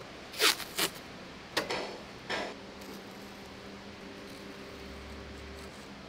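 Four short knocks and scrapes in the first two and a half seconds as a paper template and a steel rule are handled on a bare steel sheet, the first the loudest. After that there is only a steady low workshop hum.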